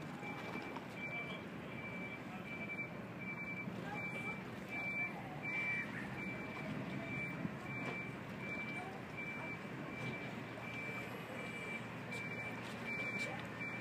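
Vehicle reversing alarm beeping: a single high tone repeating evenly, a little more than once a second, over faint background chatter from a crowd.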